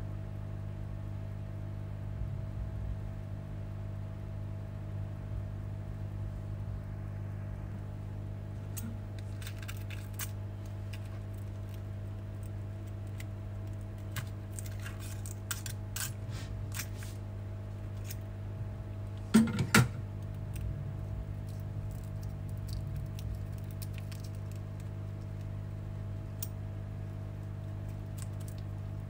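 Scattered light clicks and clinks of metal tools and cracked glass, with two sharp knocks about two-thirds of the way through, over a steady low hum.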